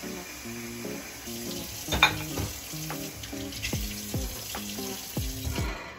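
Kitchen tap running into a stainless-steel sink as dishes are rinsed under it, with a sharp clink of a dish about two seconds in; the water stops near the end. Soft background music with a steady beat plays throughout.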